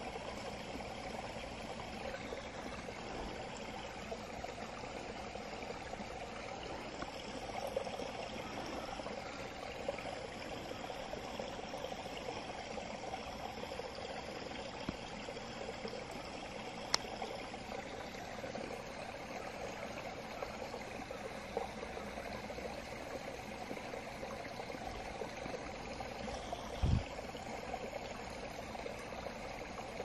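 Small woodland stream babbling steadily. A single sharp click comes about halfway through, and a brief low thump comes near the end.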